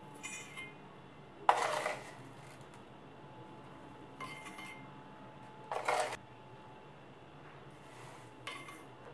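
Sugar being scooped with a plastic spoon and tipped into a plastic jar: light clinks of the spoon, each followed a little later by a short, rough rattle of sugar landing in the jar, twice.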